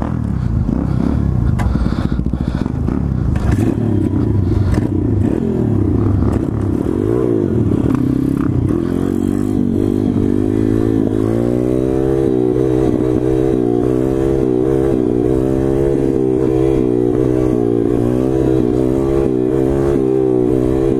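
SSR 140cc pit bike's small single-cylinder engine under way: the revs rise and fall for about the first ten seconds, then hold a steady high note.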